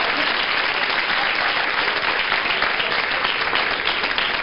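Studio audience applauding, a dense and steady round of clapping.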